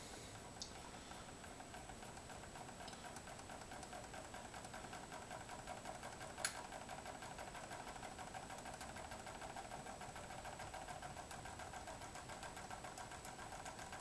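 Small homemade copper-top Stirling engine running with a fan blade on, its crank and pistons making a faint, fast, even mechanical clatter that grows slightly louder as it gathers speed. A single sharp click about six and a half seconds in.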